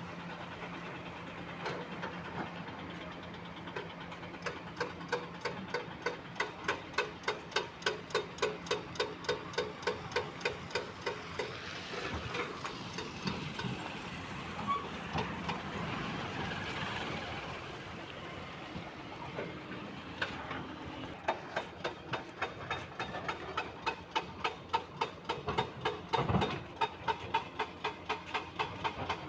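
A heavy construction machine working: an engine hum with regular sharp clanks at about two a second, coming in long runs that pause a few times.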